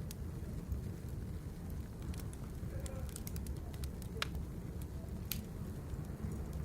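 Birch firewood burning, with irregular sharp crackles and pops over a steady low rumble of the flames.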